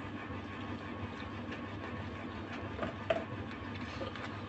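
Steady low hum, with a few small clicks and taps from people eating with their hands at a table. One click stands out about three seconds in.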